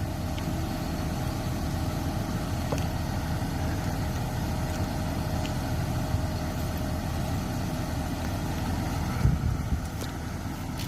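Doosan DX150W-7 wheeled excavator's diesel engine idling steadily after being started by remote start, with a brief low bump about nine seconds in.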